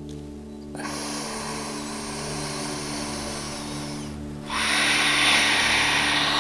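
A person breathing deeply and audibly: a long inhale of about three seconds, then a louder exhale over the last two seconds.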